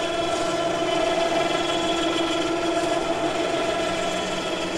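Electric winch motor of a homemade ute-mounted boat loader running at a steady pitch, winding out its cable as an aluminium dinghy is lowered off the canopy rack.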